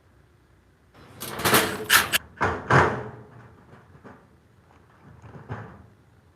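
A burst of clattering knocks and bangs about a second in, lasting about two seconds, then a few lighter knocks: hardware and tools being handled against a hollow steel garage door section.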